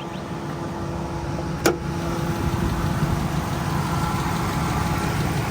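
2012 Dodge Ram 1500's 5.7 Hemi V8 idling steadily, with a single sharp clack about two seconds in, after which the engine is a little louder. The engine has a cylinder 6 misfire: it sounds better, but the fault can still be heard.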